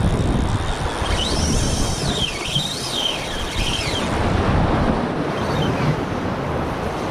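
Surf washing over rocks with wind buffeting the microphone. Between about one and four seconds in, a thin high whine rises and falls several times over it.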